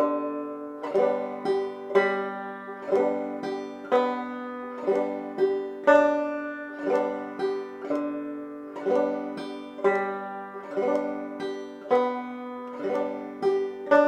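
Open-string clawhammer banjo played in the basic frailing strum, a struck note on each beat followed by a lighter brush and thumb stroke. It keeps a steady slow rhythm of about one beat a second.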